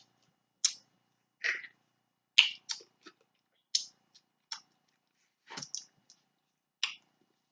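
Close-up sounds of eating snow crab legs: a series of short, sharp cracks, smacks and slurps, about one a second.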